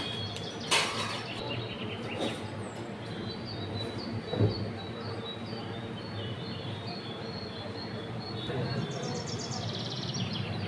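Small birds chirping in series over a steady hiss, with a sharp click about a second in and a knock about four and a half seconds in as a fork turns a paratha on an iron tawa.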